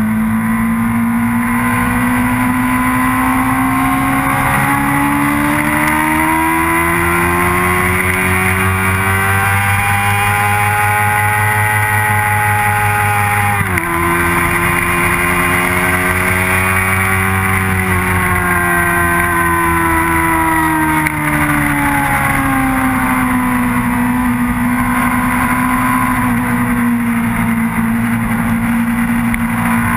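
Motorcycle engine heard from on board while riding on track, its pitch climbing steadily for about thirteen seconds under acceleration, dropping suddenly, rising briefly again, then falling away to a steadier lower note as the bike slows for a corner.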